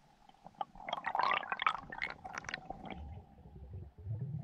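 Underwater sound on a diving camera: a rapid flurry of clicks and crackles with bubbling for about two seconds, then a low rumble near the end.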